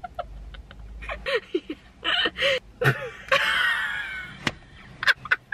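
Two women laughing uncontrollably in short, breathy bursts, with a longer, high-pitched, wheezy laugh about three and a half seconds in.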